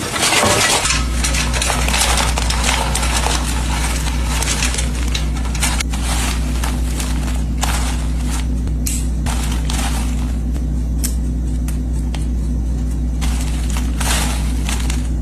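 Air fryer running: its fan motor hums steadily from about a second in, with irregular clicks and crackles over it.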